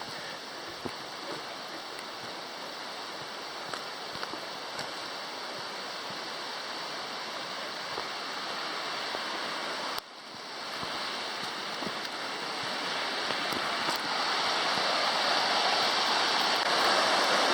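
Mountain creek rushing, running high and fast with spring snowmelt. The rush cuts down suddenly about ten seconds in, then grows steadily louder.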